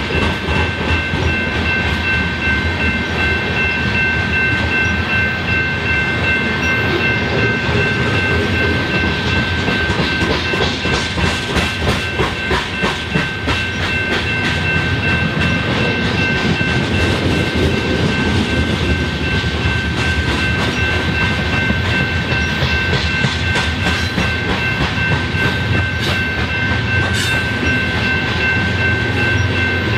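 Freight cars of a BNSF train rolling steadily through a grade crossing, wheels clicking rapidly over the rail joints. Steady high ringing tones run through it, likely the crossing signal's warning bell.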